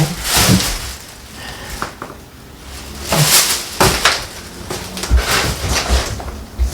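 Handling noises of metal hardware on a TV wall mount while a mounting screw is fitted: a string of scrapes and rustles with several sharp knocks and clicks and a few low thuds.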